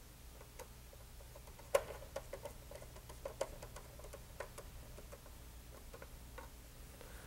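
Faint, scattered small clicks and taps as a red wire is worked into a circuit breaker's terminal in an open breaker panel, the sharpest click about two seconds in, over a steady low hum.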